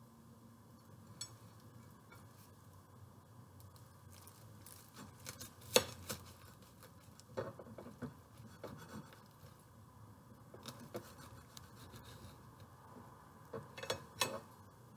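Chef's knife sawing through a toasted-bread sandwich on a ceramic plate: scattered crisp crunches and scrapes with a few sharp clicks, the loudest about six seconds in.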